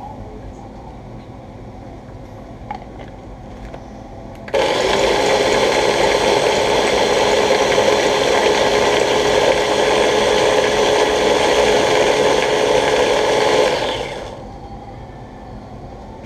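Small electric mini food chopper running steadily for about nine seconds, blending a curry sauce mixture. It starts suddenly and winds down as the button is released.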